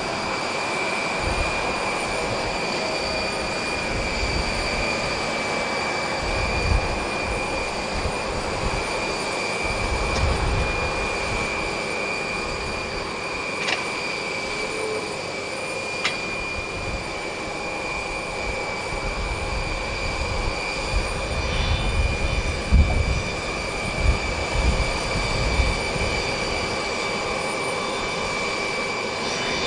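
Jet engines at taxi idle, a steady high whine, from a taxiing Beechcraft 400A business jet's twin turbofans. Irregular low rumbles come and go, and two sharp clicks sound about two seconds apart in the middle.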